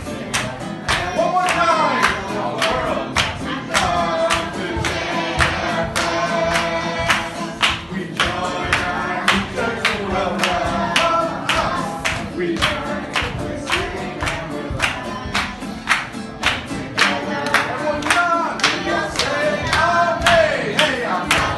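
Group singing a song together with acoustic guitar, kept in time by steady hand clapping at about two or three claps a second.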